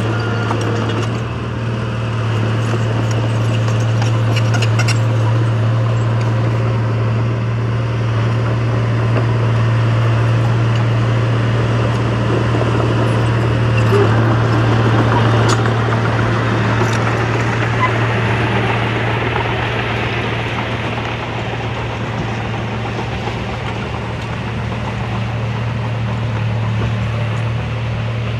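Diesel engine of heavy earthmoving equipment running steadily with a deep, even hum, with a few light clicks and knocks over it.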